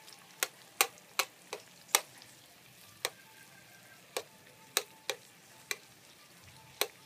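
Chopsticks clicking against a frying pan while sliced beef and onion are stirred in hot oil: about a dozen sharp clicks at irregular intervals, over a faint sizzle.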